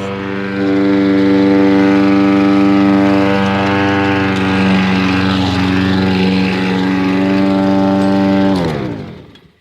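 Gas push lawn mower engine running steadily, then shut off near the end, its pitch falling as it spins down to a stop.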